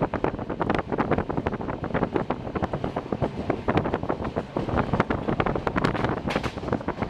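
Passenger train running at speed: a busy, irregular rattle and clatter of wheels and carriage, with wind buffeting the microphone.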